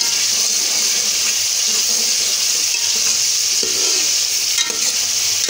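Onion-tomato masala with green chillies frying in oil in a metal pot, a steady sizzle, while a metal spoon stirs it. This is the bhunai stage, the masala being fried down before potatoes and carrots go in.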